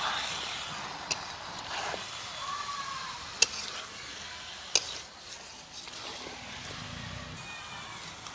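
Needle fish and new potatoes sizzling in oil in a metal kadai as a metal spatula stirs them, with three sharp clacks of the spatula on the pan: one about a second in, then two louder ones at about three and a half and five seconds.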